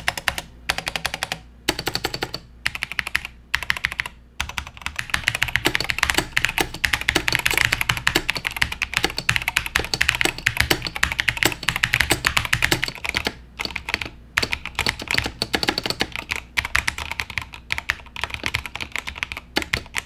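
Typing on a Razer BlackWidow TE mechanical keyboard fitted with Razer doubleshot PBT keycaps: a fast, steady run of key clacks, solid and crisp, broken by a few short pauses in the first few seconds.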